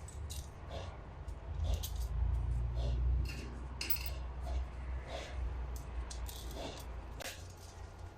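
Small metal parts clinking and clicking, with irregular sharp ticks over a low handling rumble, as a vibration pump's piston assembly is taken apart and adjusting washers are added.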